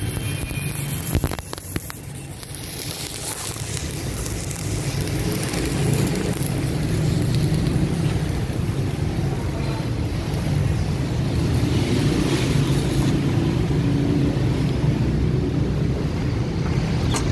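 Stick-welding arc from a Boss Arc 220 welder burning an electrode, a continuous crackling hiss. It falters with a couple of clicks about a second in, dips, then builds back up and runs steadily.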